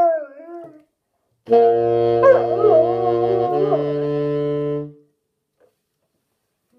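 Bernese Mountain Dog howling along with a wind instrument. A wavering howl trails off in the first second. After a short gap the instrument holds two long notes, the second a little higher, and the dog howls over the first of them.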